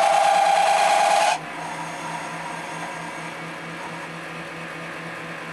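MX-210V benchtop lathe boring a steel part with a carbide-insert boring bar: the cut gives a loud, steady, high-pitched squeal, the chatter of a flexing boring bar. About a second and a half in the squeal cuts off suddenly, leaving the lathe running with a quieter steady hum.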